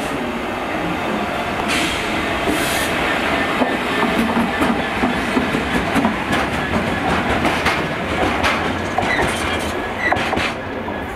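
Class 66 diesel-electric freight locomotive, with its two-stroke EMD V12 engine running, passing close by with a train of freight wagons. From about four seconds in, the wagon wheels click repeatedly over the rail joints.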